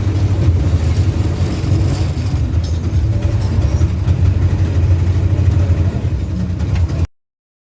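Motor vehicle running, a steady low engine and road rumble, which cuts off abruptly near the end.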